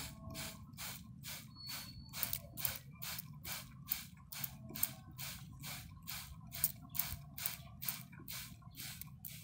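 Hand-pumped water spray bottle squeezed over and over, about three sprays a second, each a short hiss of mist, over a low steady rumble.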